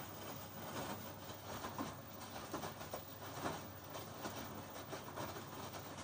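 LG front-loading washing machine drum turning, with wet laundry tumbling and splashing through soapy water in irregular sloshes.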